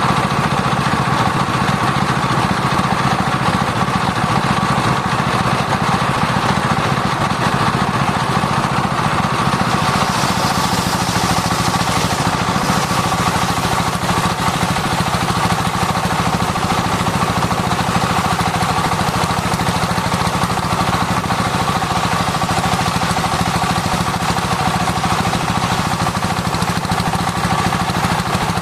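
Sawmill circular disc saw running steadily while sawing sengon timber, with a constant whine and a low drive hum. A brighter hiss joins about ten seconds in.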